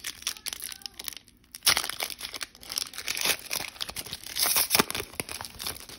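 Foil trading-card pack wrapper crinkling and tearing as it is opened by hand: an irregular run of crackling with a short lull about a second and a half in.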